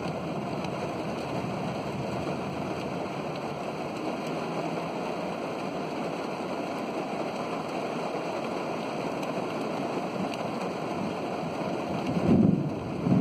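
Steady rain during a thunderstorm, a continuous even hiss. Near the end come two short, louder low bumps.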